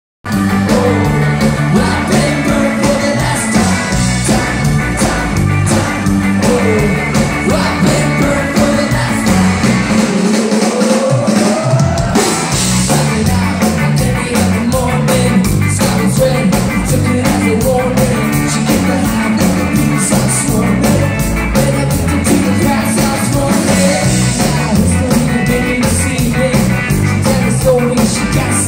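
Ska-punk band playing live and loud: a woman's lead vocals over electric guitars, bass and drums. Near the middle the bass and drums drop out for about two seconds before the full band comes back in.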